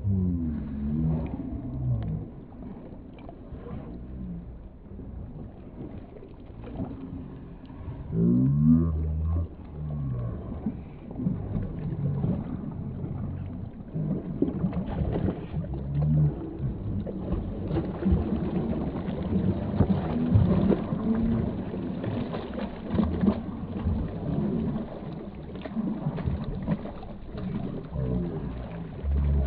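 Two German Shepherds splashing as they swim and wade through shallow water, heard slowed down, so the water sounds deep and dragged out. About eight to nine seconds in there is a deep, drawn-out voice-like sound.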